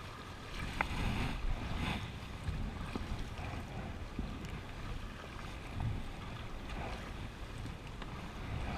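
River water rushing and splashing against an inflatable raft as the paddlers take forward strokes, the sound swelling roughly once a second. Wind rumbles on the microphone.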